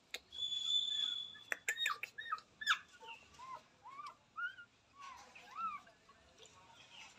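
Newborn puppies, about two days old, squeaking while nursing: many short, high cries that rise and fall. A few sharp clicks come in the first three seconds, and a thin, steady high whistle lasts about a second near the start.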